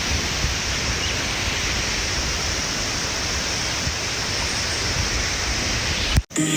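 Steady rushing water of a rainforest river cascade, an even hiss that cuts off abruptly near the end.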